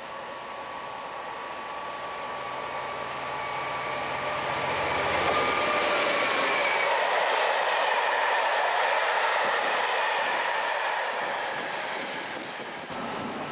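An EWS Class 66 diesel locomotive, its EMD two-stroke V12 running, passes at speed hauling a train of tank wagons. The sound builds to a peak in the middle as the wagons roll past, with a high whine over the rumble of wheels on rail, then fades as the train draws away.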